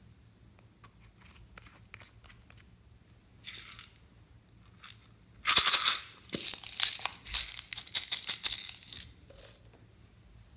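Hands squeezing and pulling slime, a wet crackling with many small pops and clicks. It is loudest from about halfway through for about four seconds, after a few faint dabs and a short crackle.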